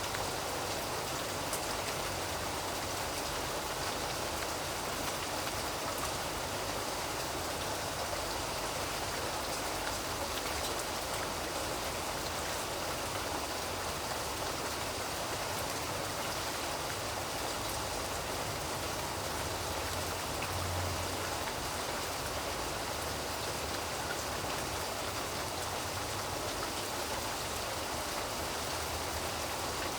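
Steady rain falling, an even hiss of drops on a surface that does not change.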